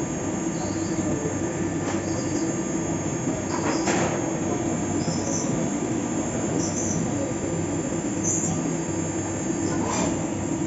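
Fagima Jazz M 5-axis CNC milling machine running a cut: a steady mechanical hum with several brief high-pitched squeals and a few sharp knocks.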